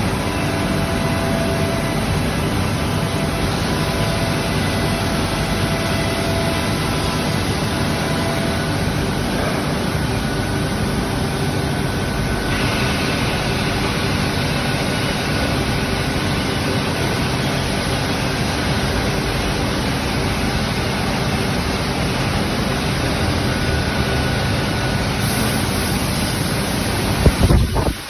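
CNC wood-cutting machine running, a steady machine noise with faint whining tones over it. There is a short louder burst near the end.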